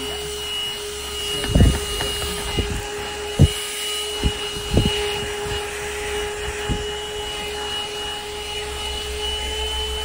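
Corded car vacuum cleaner, powered from the running car, motor running steadily with a constant whine. A handful of short, sharp knocks come in the first seven seconds as it is worked over the fabric seat.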